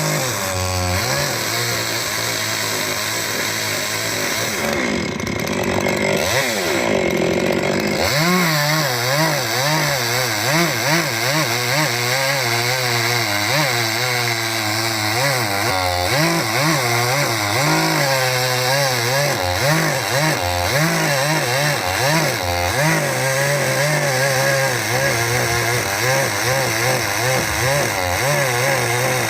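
Stihl two-stroke chainsaw running and cutting wood, its engine pitch wavering up and down as it bogs under load and revs back up. Around six seconds in the pitch drops sharply and climbs again.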